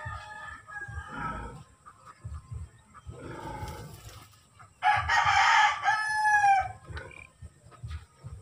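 A rooster crows once, loudly, about five seconds in; the crow lasts roughly two seconds and its pitch falls away at the end.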